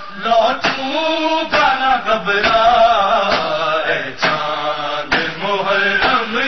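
An Urdu noha, a Muharram lament, chanted by voices in long held lines over a steady beat about once a second.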